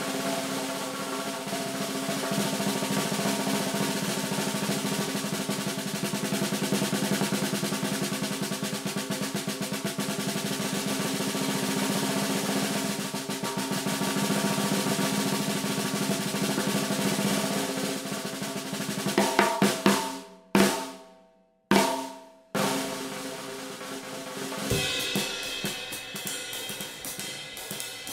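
A 1960s Gretsch 4105 14x5 snare drum played with sticks: a long, continuous roll with the snare wires sizzling. About twenty seconds in come a few single strokes that ring out and stop. Near the end a beat starts, with a cymbal joining in.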